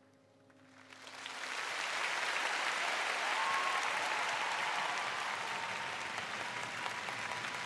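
Large arena audience applauding, the clapping swelling up about a second in as the last piano notes die away, then holding steady.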